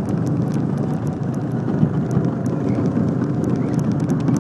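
Go-kart engine running steadily while the kart drives through a curve on the track.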